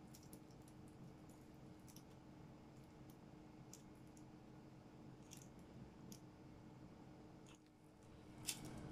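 Near silence: a low steady hum of room tone with a few faint, scattered clicks, the sharpest one near the end.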